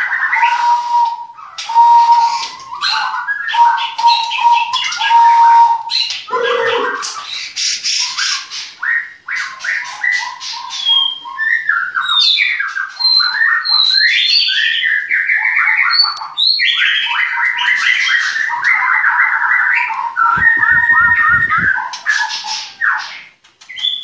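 White-rumped shamas (murai batu) in aviaries singing loudly: an unbroken, ever-changing run of whistled phrases, rising and falling notes and harsh squawks, with a repeated steady whistle through the first six seconds.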